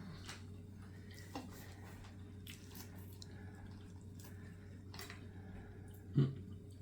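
Faint, scattered clicks and taps of cutlery on a plate while someone eats, over a steady low hum. A brief louder low sound comes about six seconds in.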